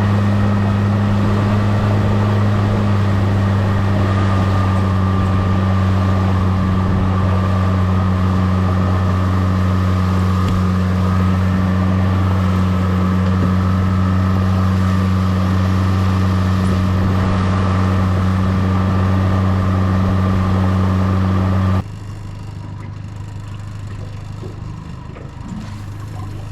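Yamaha 75 outboard motor pushing the boat along at a steady speed, with an even, unchanging drone. Near the end it drops abruptly to a much quieter sound without the drone.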